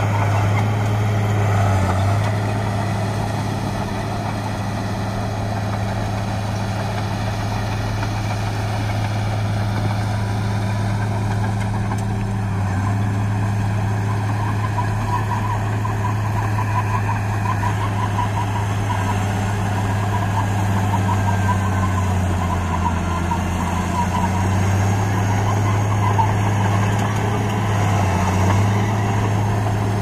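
Crawler bulldozer's diesel engine running steadily as it pushes earth, its pitch dipping briefly a few times as the load changes.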